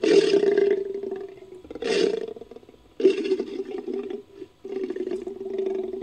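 Lion roars reworked into a cave lion sound effect: a loud roar right at the start, a shorter one about two seconds in, then a longer, steadier call from about three seconds on, broken briefly just past four seconds.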